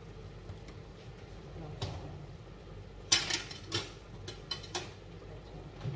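Kitchen dishes and utensils clinking: a handful of short, sharp knocks, the loudest a quick cluster about three seconds in, with more scattered through the rest.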